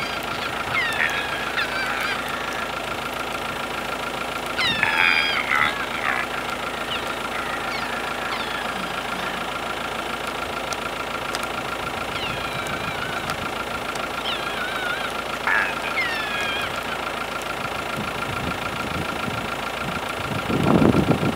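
Deer calling: short, high, squeaky calls that fall in pitch, coming in clusters every few seconds, over the steady idle of a rattly diesel car engine. Near the end a louder low rumble rises.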